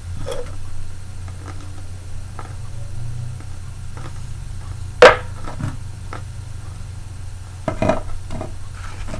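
Eating noises from a bowl of chili with crackers: a sharp click about five seconds in and a short crackly crunch near the end, over a steady low hum.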